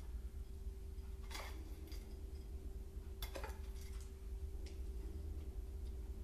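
A spoon clinking softly against a small bowl a few times as panko topping is spooned out, over a low steady hum.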